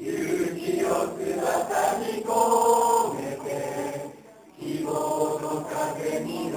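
A mixed choir of young men and women singing together in chorus, with a short pause a little after four seconds before the next phrase.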